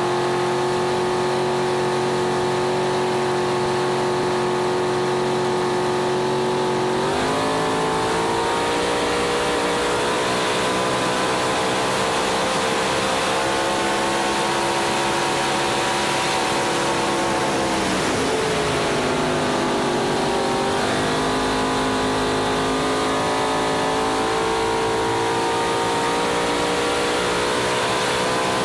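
Racing boat's engine running hard at speed, over a rush of wind and water. Its pitch holds steady, steps up about a quarter of the way through, sags about two-thirds of the way in, then climbs again.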